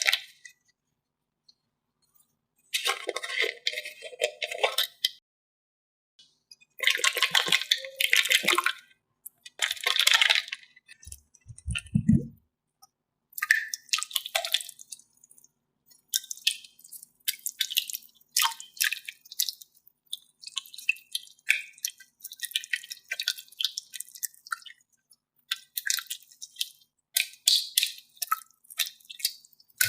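Slime being squeezed and worked by hand, making sticky clicking and crackling in spells of a second or two, then clicking almost without pause. About twelve seconds in there is one low thump.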